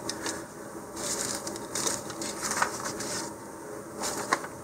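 Light handling noise: rustling of the plastic parachute, cord and paper, with a few small clicks.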